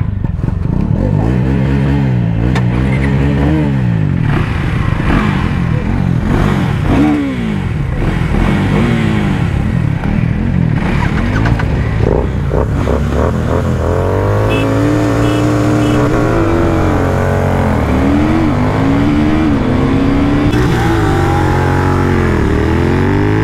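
Several motorcycle engines revving together at the line, the nearest a Royal Enfield Continental GT 650's parallel twin, alongside a KTM Duke 390, a Kawasaki Ninja 300 and a Bajaj Dominar 400. Their pitch keeps rising and falling, and in the second half some are held high for a few seconds at a time.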